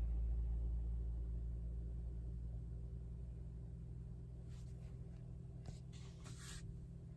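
A low, steady hum that slowly fades, with a few brief rustles a little over halfway through.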